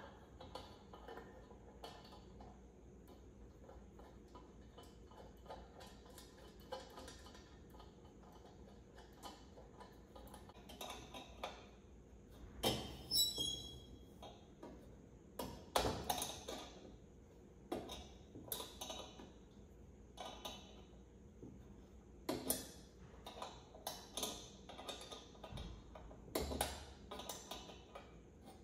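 Irregular light clicks, taps and metal clinks from handling the parts of an old Coleman pressure lantern, busier in the second half. About thirteen seconds in there is one brief ringing ping.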